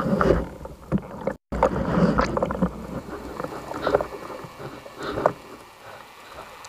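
A freediving spearfisher's guttural throat calls (laryngismos), heard underwater, to lure a dentex: several irregular croaking bursts, the last about five seconds in.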